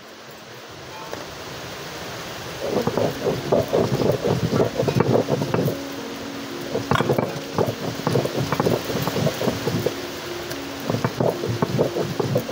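Stone roller rubbed back and forth over a flat stone grinding slab (sil-pua), grinding soaked cumin and coriander seeds into a wet paste. It makes a gritty, irregular scraping that starts in earnest a few seconds in and keeps going with many short strokes.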